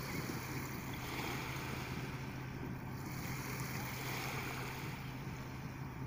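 Steady wind and sea-surf noise with a faint, constant low hum underneath.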